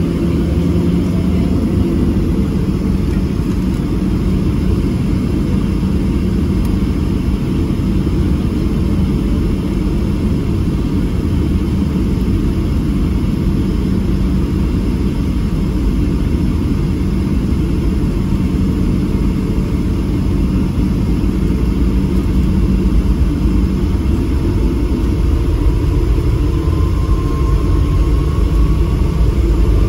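Boeing 737-700 cabin noise heard from a window seat over the wing: a steady low rumble from its CFM56-7B jet engines. Near the end the sound grows louder and a thin whine rises in pitch as the engines spool up and the jet accelerates down the runway for takeoff.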